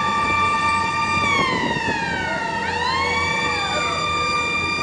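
A vehicle siren holding a steady high note, sliding down in pitch a little over a second in, then sweeping back up and holding again, over the steady low hum of a vehicle engine.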